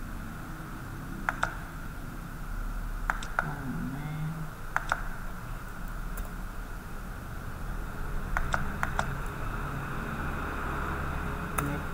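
Sparse computer keyboard and mouse clicks, about ten in all, some single and some in quick pairs, over a steady faint background hum.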